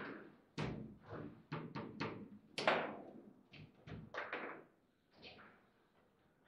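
Foosball table in play: a quick run of sharp knocks and clacks as the ball is struck and the rods knock, irregular and in quick clusters, the loudest about two and a half seconds in.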